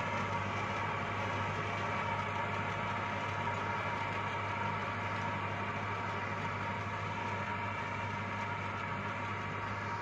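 Tractor engine running steadily under load while pulling a Sonalika pneumatic seed planter, with the planter's blower adding a steady whine; the sound fades slightly as the rig moves away.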